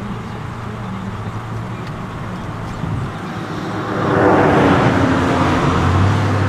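A motor vehicle's engine running with a steady low hum, joined about four seconds in by a swelling rush of tyre and road noise as traffic goes by.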